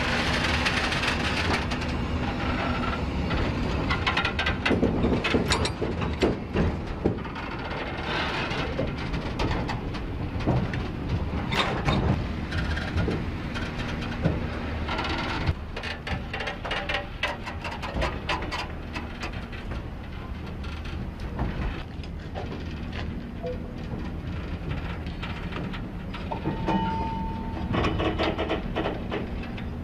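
Freight train of loaded flatcars rolling past, wheels clattering and knocking irregularly over the rails under a steady low rumble, with a brief high squeal near the end.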